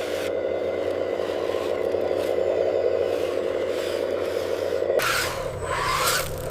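An RC construction machine's motor running steadily, with soil and gravel scraping. About five seconds in the sound changes abruptly to a lower rumble with louder scraping.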